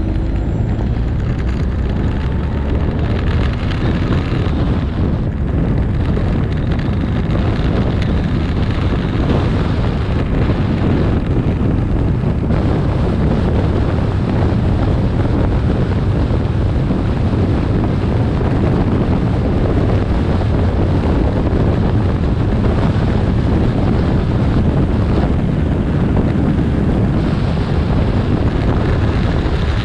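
Wind rushing over the microphone of a Kawasaki 1400 Concours riding at a steady road speed, a loud, even roar, with the bike's inline-four engine and tyre noise underneath.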